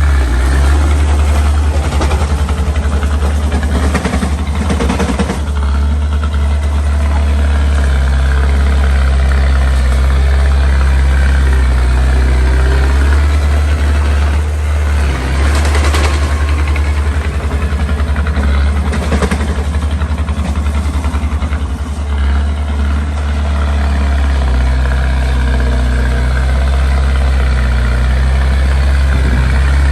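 Small bulldozer's diesel engine running steadily at low revs, with a few brief bursts of rattling noise now and then.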